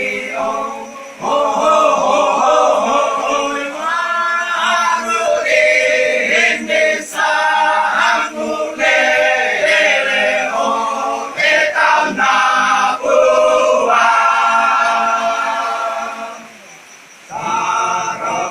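Choir singing a cappella, a Torajan hymn arranged in the style of badong funeral chant, in sustained sung phrases. The voices briefly fall away near the end, then come back in.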